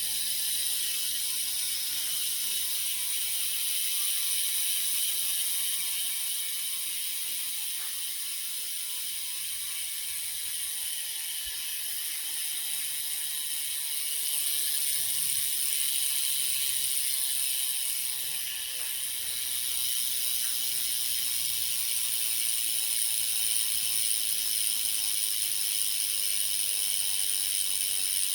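Freehub of a 6-pawl Ryet bicycle hub ratcheting as the wheel spins freely: a rapid, continuous high-pitched buzz of pawl clicks that swells and fades a little.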